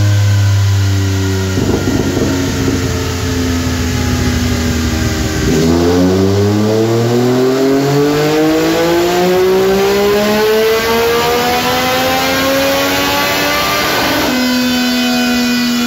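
Yamaha Tracer 900's 847 cc three-cylinder engine with an Akrapovic racing exhaust, making a dyno pull. It runs at low revs in gear for the first few seconds, then climbs steadily through the rev range for about eight seconds. The throttle closes about fourteen seconds in and the revs drop away.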